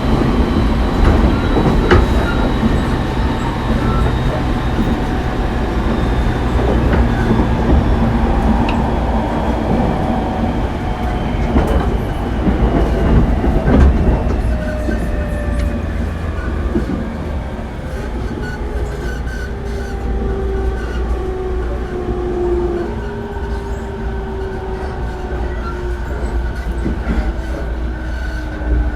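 JR East 209-500 series electric train heard from inside a motor car: traction motor and gear whine over steady wheel-on-rail running noise. The whine falls slowly in pitch throughout as the train loses speed, and the sound eases somewhat about halfway through.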